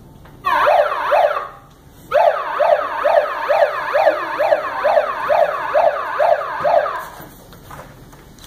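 Ambulance siren sound effect in a fast up-and-down yelp, about two sweeps a second: a short burst, a brief break, then about five seconds more before it stops.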